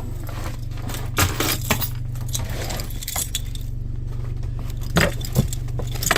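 Rummaging through a car's trunk: a handful of sharp knocks and clinks as things are moved about, in two clusters, over a steady low hum.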